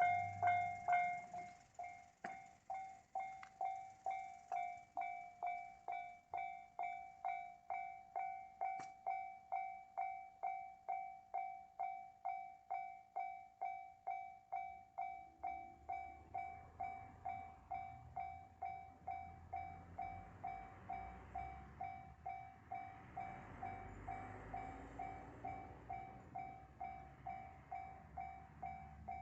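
Japanese level-crossing alarm ringing, an electronic bell sounding about twice a second without pause. From about halfway the running noise of a KiHa 75 diesel railcar passing at speed builds under it, strongest a few seconds before the end.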